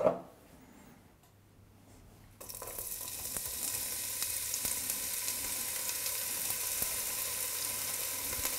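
A brief knock at the very start, then about two and a half seconds in, finely chopped onion tipped into hot olive oil in a pot starts to sizzle in a steady frying hiss. The onion is being sweated gently, the first stage of a risotto.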